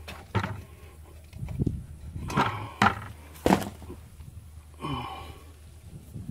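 A handful of separate knocks and clunks from hand work on a Kubota tractor's transmission filter cartridge, with a steady low hum beneath.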